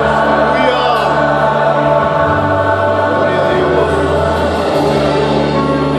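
A mixed choir of men, women and children singing a hymn together, holding long sustained notes.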